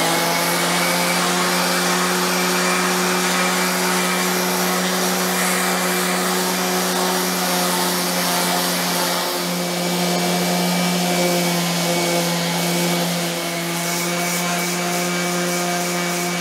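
Random orbit sander with a 40-grit disc running against cast iron, with a canister vacuum cleaner hooked to its hose drawing off the dust. Both motors run steadily, giving an even, pitched hum over the rushing of air and the sanding.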